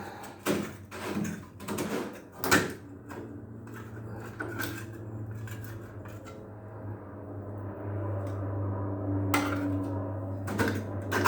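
Knocks and clicks of washing-machine parts being handled during cleaning, over a steady low hum. The sharpest knock comes about two and a half seconds in, with more near the end.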